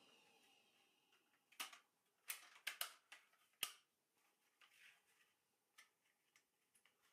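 Light handling clicks and knocks of a homemade open-slot wiring raceway duct: a handful of sharp clicks bunched between about one and a half and four seconds in, then a few fainter ticks, over near silence.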